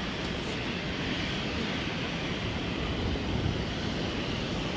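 Airbus A320's CFM56 turbofan engines: a steady jet rumble and hiss as the airliner rolls along the runway.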